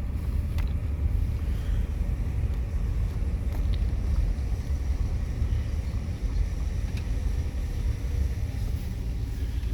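Steady low rumble of a car driving at low speed, heard from inside the cabin, with a few faint clicks.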